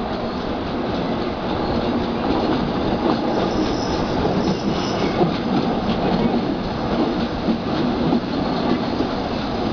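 Passenger train coaches rolling at reduced speed round a curve, heard from an open coach window: a steady rumble of steel wheels on the rails with light clicks. A faint high wheel squeal comes in between about three and five seconds in.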